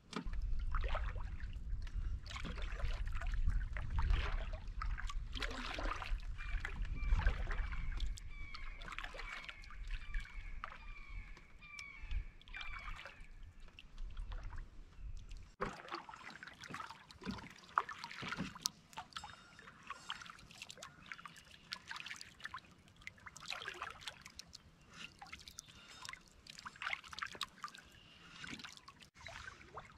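Canoe paddle strokes: water sloshing and dripping off the paddle blade, with a low wind rumble on the microphone that stops about halfway through. In the middle, a bird calls a run of short, even notes, about two a second, for several seconds.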